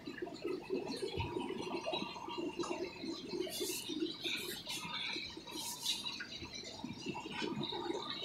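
Aquarium aeration and filters bubbling and running steadily, with a faint steady hum and a few brief hisses midway.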